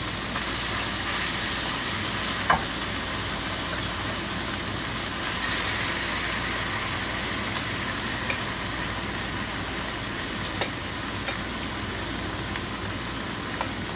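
Strips of beef steak, drained of their liquid, sizzling steadily as they fry in a stainless steel skillet while they are scooped in with a wooden spatula. A single sharp knock about two and a half seconds in, with a few lighter taps later on.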